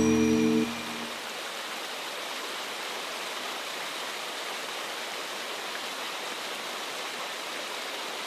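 The last held chord of the music breaks off under a second in, leaving a steady, even hiss of rainfall.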